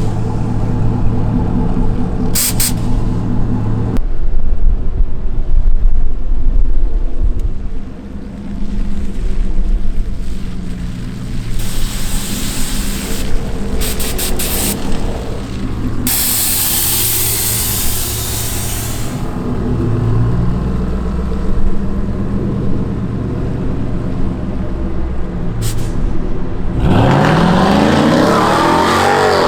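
A motor vehicle's engine running steadily, then revving up with a rising pitch near the end.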